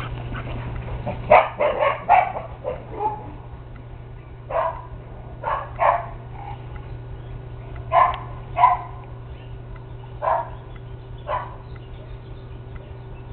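Dogs barking in short, separate barks: a quick run of several in the first few seconds, then single and paired barks every second or two, stopping a couple of seconds before the end.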